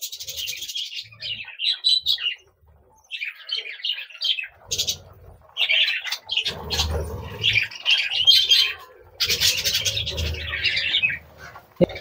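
Budgerigars chirping and chattering in short, high, scratchy bursts, with two stretches of low rumbling noise, about a second each, in the middle.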